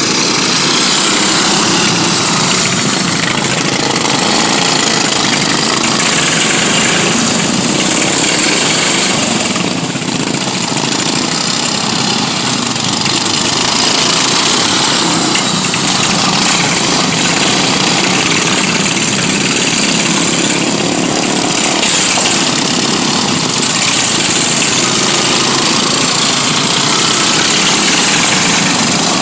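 Single-cylinder stock-class racing lawn mower engine noise, loud and steady, dipping briefly about ten seconds in.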